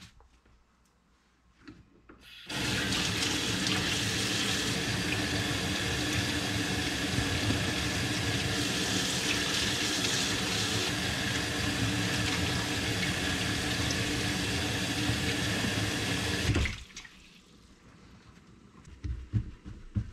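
Kitchen faucet running into a stainless steel sink as raw grouse meat is rinsed under the stream. The water comes on about two and a half seconds in, runs steadily, and is shut off suddenly near the end, followed by a few soft knocks.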